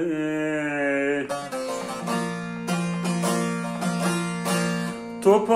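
A man's sung note is held with a slight waver for about a second, then a bağlama (Turkish long-necked lute) plays a plucked instrumental phrase of quick picked notes between sung lines of a folk song.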